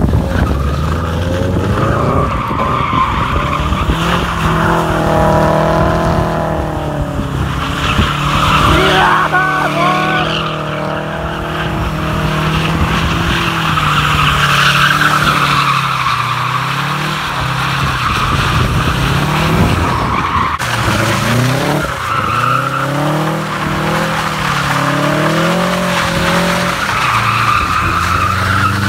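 Subaru Impreza WRX drift car drifting: the engine revs up and down again and again while the rear tyres squeal and skid on the asphalt.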